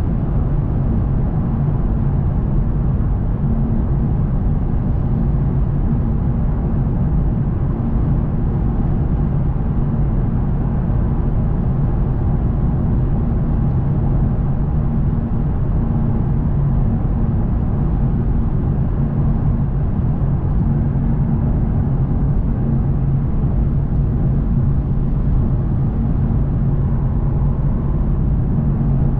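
Inside the cabin of a Lexus RC F Track Edition cruising at a steady speed: the 5.0-litre V8 drones at a constant pitch under a steady rumble of road and tyre noise.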